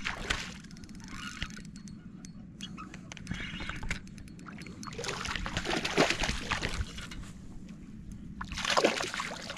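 Water splashing in irregular bursts, a long one about halfway through and a sharp one near the end: a hooked fish thrashing at the surface as it is reeled in beside the boat.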